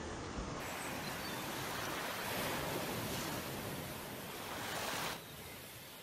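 Small waves washing up on a sandy shore: a steady rush of surf that swells in the middle and drops suddenly to a quieter wash near the end.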